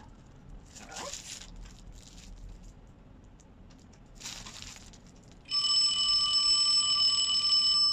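Rustling as a corded telephone handset is handled and lifted, then from about five and a half seconds in a loud, steady bell-like ring with several pitches sounding together.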